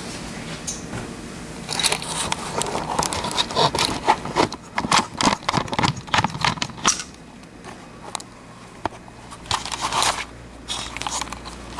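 Irregular scraping and clicking, in short uneven strokes, densest around the middle.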